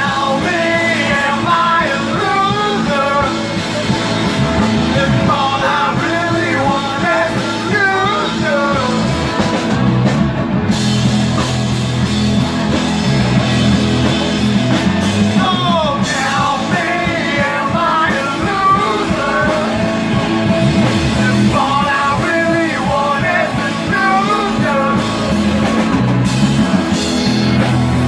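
Rock song played by a band with a lead singer: two sung passages with an instrumental stretch between them, over a steady bass and guitar backing.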